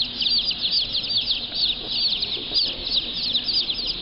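A boxful of baby chicks (Gold Star, Rhode Island Red and Buff Orpington) peeping nonstop: many short, high peeps overlapping, several a second.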